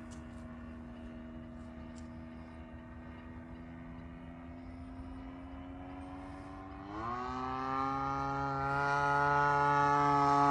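Engine and propeller of a Hangar 9 Pitts S-2B radio-control model biplane in flight, a steady drone; about seven seconds in the throttle opens, the pitch jumps up and the sound keeps getting louder.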